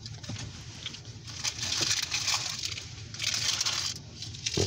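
Rustling and crinkling handling noises inside a car cabin, in two longer bursts near the middle, over a low steady hum, with a single thump near the end.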